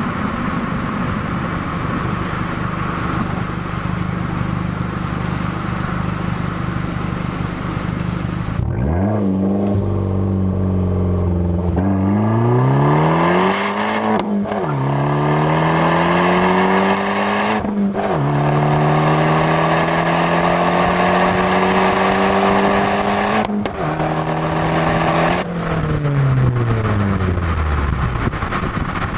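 Fiat 500 Abarth's turbocharged four-cylinder engine and exhaust under way. The note is steady at first, then revs up through the gears, dropping in pitch at each of three upshifts, and falls away steadily near the end as the car slows.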